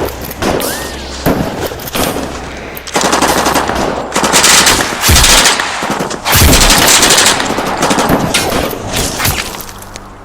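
Thompson submachine gun fire in a shootout: long bursts of rapid automatic fire broken by short pauses, loudest through the middle and dying away near the end.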